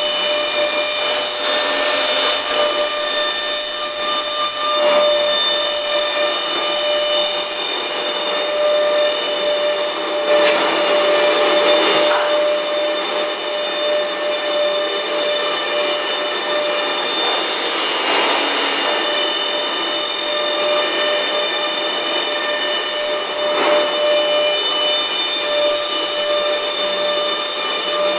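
Four-spindle PCB CNC drilling and routing machine running, its high-speed spindles giving a steady whine of several high tones while cutting green printed circuit board panels under dust-extraction hoses. A hiss of cutting and suction swells a few times.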